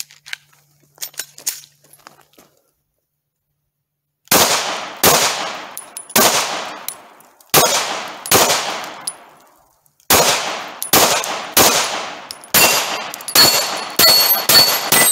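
Glock 17 9mm pistol firing about fifteen shots, a few faint clicks and a pause first. The first five shots are slow and uneven, the rest come quicker at about two a second. The later shots are followed by a metallic ring of bullets hitting steel plate targets.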